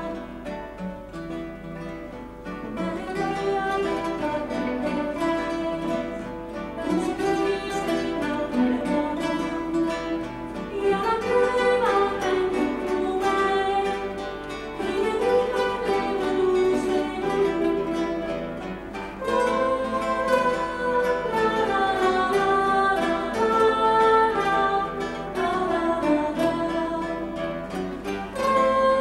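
Guitar orchestra of many acoustic guitars playing a song accompaniment, with a woman singing.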